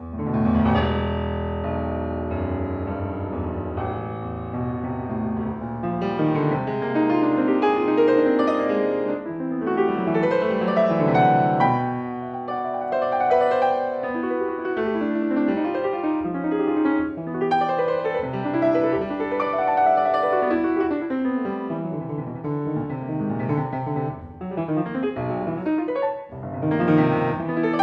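Solo piano playing a toccata: busy, many-voiced figuration across the keyboard, entering loudly straight out of silence, with a loud accented flourish near the end.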